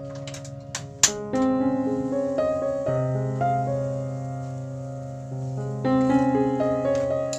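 Background piano music: a melody of single notes over held low notes, with a few sharp clicks in the first second.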